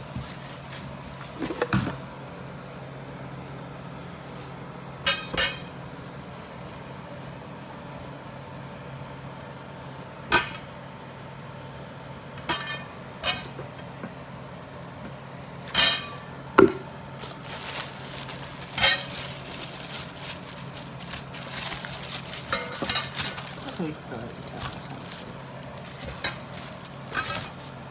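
Nonstick cookware pieces knocking and clinking as they are handled: scattered single knocks, then a busier run of clatter in the middle of the stretch, over a steady low hum.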